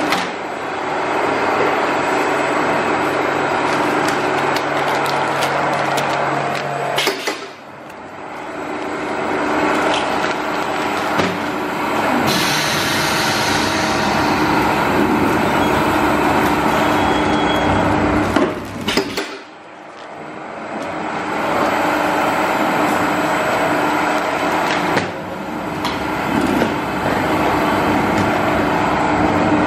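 Sugar paste slicing machine running, a continuous mechanical hum and whir. The noise drops away sharply twice, about seven and nineteen seconds in, and each time builds back up over a few seconds.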